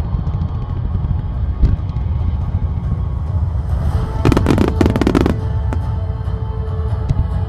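Fireworks bursting and crackling over music with a deep, steady low rumble. A single sharp bang comes about a second and a half in, then a dense cluster of rapid crackles about four to five seconds in.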